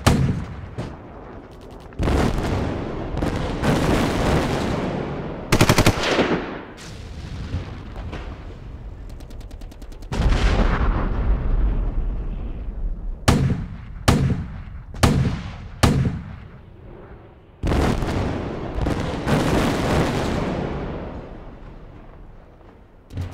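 Battle sound effects: gunshots and machine-gun bursts, each trailing off in a long echo, with a heavy, deep blast about ten seconds in.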